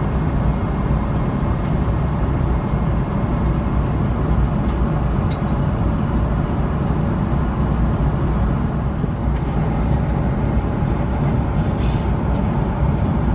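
Boeing 777-300ER cabin noise in cruise: a steady low rumble of airflow and engines with a faint hum, and a few faint clicks.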